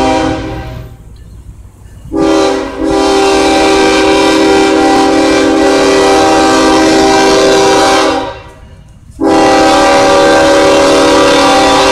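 Kansas City Southern de México diesel locomotive's air horn sounding as the train approaches. One blast fades out in the first second and a short blast comes about two seconds in. A long blast of about five seconds follows, then after a gap of about a second another long blast begins.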